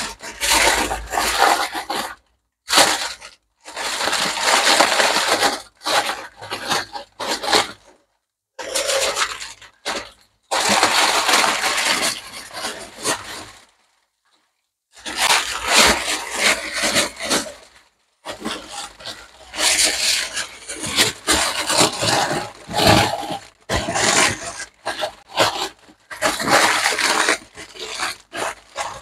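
Aluminium foil crinkling and crackling in repeated bursts as it is folded and wrapped by hand, with short silent gaps between handlings.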